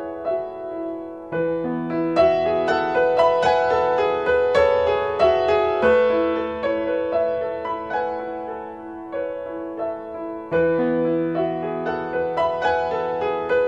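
Background piano music: a slow melody of struck notes that ring and fade, over held lower notes.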